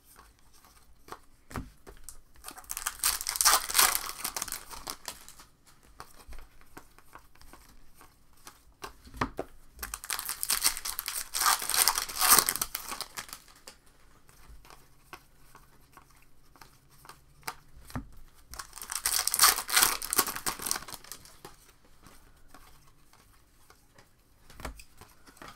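Foil trading-card pack wrappers being torn open and crinkled: three separate bursts, each lasting two to three seconds, with faint handling of cards in between.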